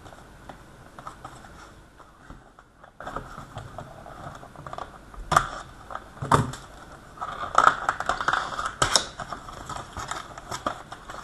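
Hands handling and opening trading-card packaging: scattered clicks, rustling and scraping, with a couple of louder sharp knocks about halfway through and a busy run of scraping and clicking after that.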